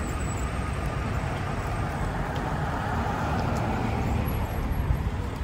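Road traffic on a busy street: cars driving past as a steady rumble, with one passing vehicle growing louder about halfway through.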